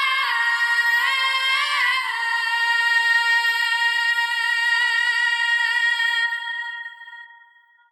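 A single high voice singing a melody with no accompaniment, sliding between notes, then holding one long note that fades away near the end.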